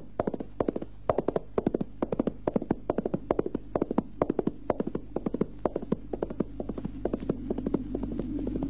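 A horse galloping, its hoofbeats coming in a quick, even rhythm and fading near the end as a low steady hum rises.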